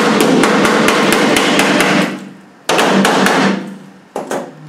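Hammer striking the aluminium seat box panel of a Land Rover Defender in quick blows, about five a second, with a metallic ring. A run of about two seconds, then a short pause, a shorter run, and a couple of last blows near the end, knocking the panel loose from its drilled-out pop rivets.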